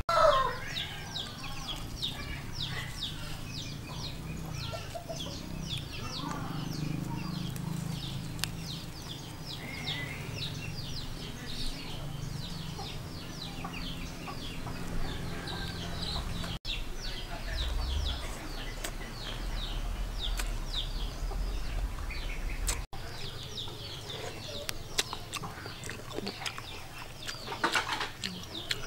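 Chickens clucking in the background, with many quick, high cheeps and chirps over a steady low hum.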